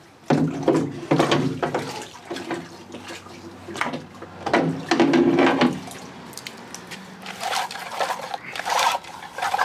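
Outboard recoil starter being washed by hand in a parts-washer tank, the cleaning liquid splashing irregularly, most strongly near the end.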